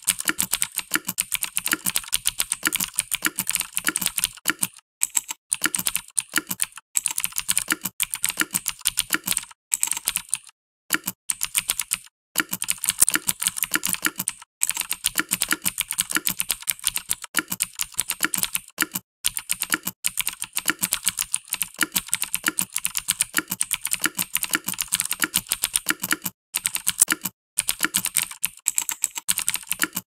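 Mechanical keyboard with clicky Cherry MX Blue switches and ABS keycaps being typed on steadily, a rapid run of sharp key clicks broken by a few brief pauses.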